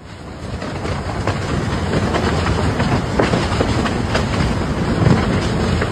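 Hurricane-force wind blowing hard, with a rapid clatter of small knocks and rattles running through it. It fades in over the first second or two, then holds loud.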